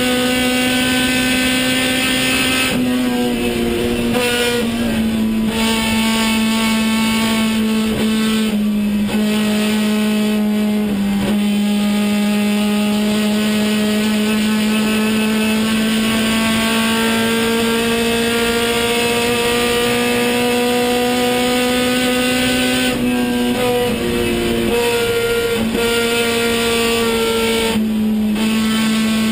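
Race car engine heard through its onboard camera while lapping the circuit, holding a steady high note with several quick gear changes, each a brief drop and step in pitch.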